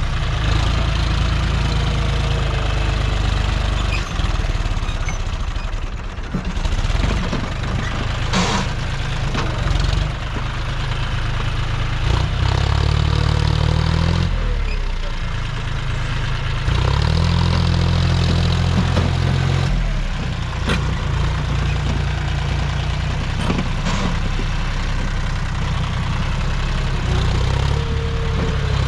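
John Deere 5050D tractor's three-cylinder diesel engine working under heavy load as it pulls a loaded soil trolley up a dirt slope. The engine note changes and strengthens in two spells, about twelve and seventeen seconds in.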